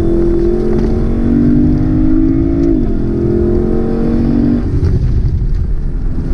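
Lexus LC500's 5.0-litre naturally aspirated V8 accelerating hard, heard from inside the cabin. The revs climb, fall at an upshift of the 10-speed automatic about three seconds in, climb again, and die away as the throttle eases about a second and a half before the end, over steady tyre and road noise.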